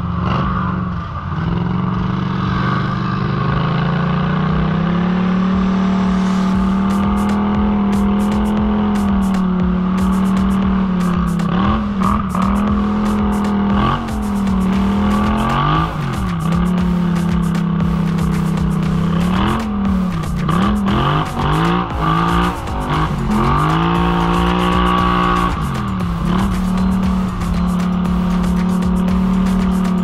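ATV engine running hard on a trail, its pitch dropping and climbing again several times as the throttle is eased off and opened up, with frequent short ticks and knocks over the top.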